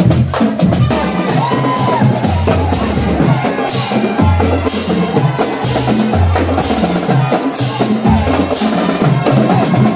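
Street drum band playing: snare drums, bass drums and clashing cymbals beating out a steady rhythm.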